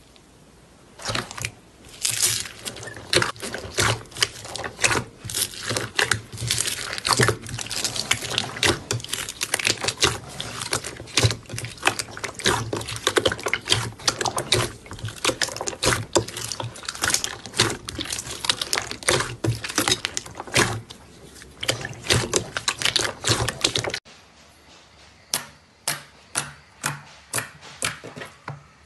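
Slime being pressed and squeezed by hand, with dense wet crackling and popping clicks. After a cut near the end, an even series of sticky clicks at about two a second.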